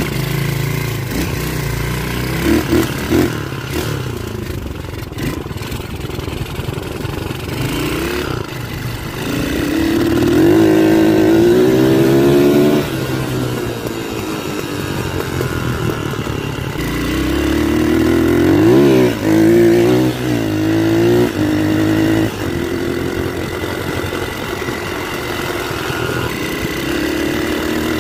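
Dirt bike engine running as the bike rides off and picks up speed, revving up several times, each time rising in pitch and then dropping back.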